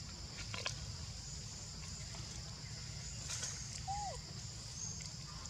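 Faint outdoor ambience with a steady high hiss and a few soft clicks. About four seconds in comes one short call that rises and then falls in pitch.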